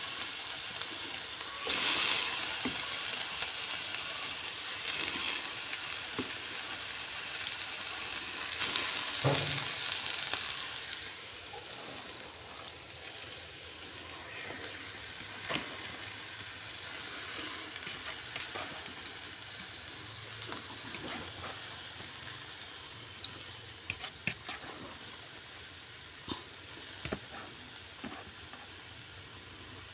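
Washed shrimp sizzling in a hot wok with no water added yet. The hiss is louder for about the first ten seconds, then dies down. A few sharp clicks come in the second half.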